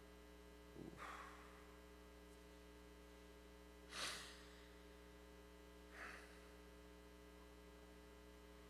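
A man's breathing picked up by the lectern microphone as he holds back tears: three short breaths or sniffs, about one, four and six seconds in, the one at four seconds the loudest. Under them runs a steady mains hum.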